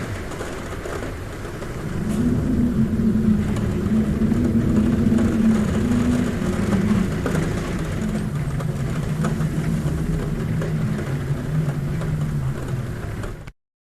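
Rain noise with a low, steady droning hum underneath that sinks slightly in pitch. The sound cuts off abruptly to silence just before the end.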